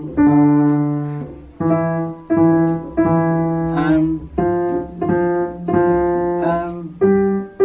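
Electronic keyboard with a piano voice played one note at a time by a beginner, about ten slow single notes, each struck cleanly and held until the next, stepping through a few neighbouring pitches.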